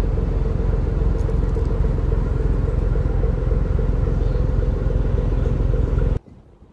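Car ferry's engines running with a loud, steady low rumble and a droning hum; the sound cuts off suddenly shortly before the end.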